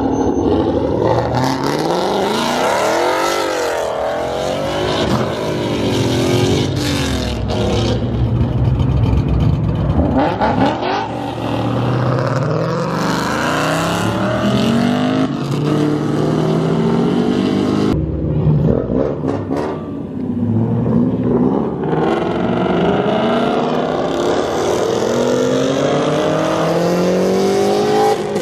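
Loud performance-car engines accelerating hard one after another as they pull out, the pitch climbing with each rev and gear and then dropping again, over and over.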